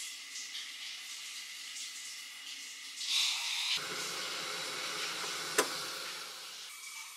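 Gas stove burner hissing under an enamel bowl of water. A little over three seconds in, the flame is turned up and runs as a fuller rush, then drops back near the end. There is one sharp click in between.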